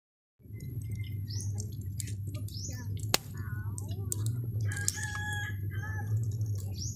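Birds calling with short, curved chirps over a steady low rumble. There is one sharp pop about three seconds in.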